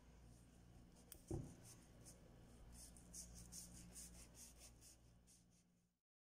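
Large kitchen knife cutting through a baked pizza's crust: a knock a little over a second in as the blade comes down, then a run of short, crisp scraping strokes, several a second, over a low steady hum, cutting off suddenly near the end.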